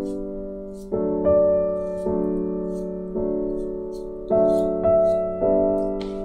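Background piano music: slow chords, a new one struck about every second, each fading away before the next.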